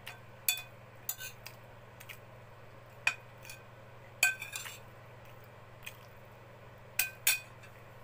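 Cutlery clinking against a plate while eating: scattered sharp clinks with a short ring, a quick cluster about halfway through and two close together near the end.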